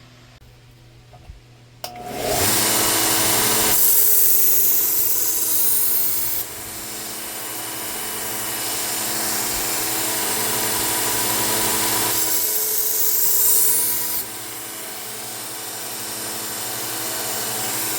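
Belt sander with a 240-grit belt starting up about two seconds in and running steadily. A steel knife blade is drawn across the belt twice, each pass adding a louder grinding hiss for about two seconds.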